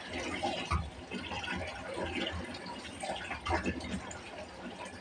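Hands swishing and splashing water in a plastic basin while rinsing kangkong (water spinach), with a couple of dull knocks.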